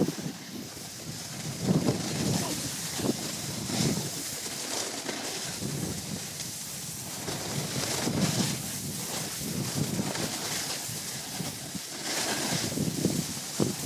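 Wind buffeting the microphone of a camera carried at speed down a snow slope, in uneven low gusts, over a steady hiss of sliding across the snow.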